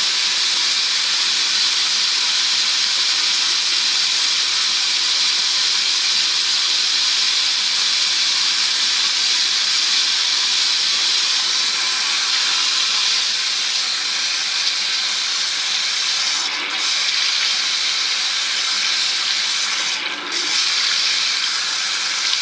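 Water running steadily from a tap as oily, soapy hands are rinsed, the flow briefly broken twice near the end.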